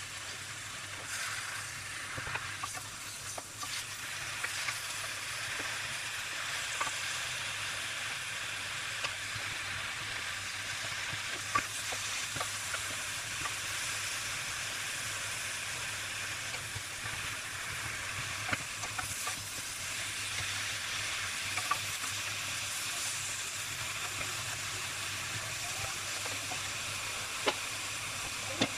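Swiss chard leaves sizzling as they sauté in oil in a frying pan, with a few sharp clicks from a wooden spatula stirring them.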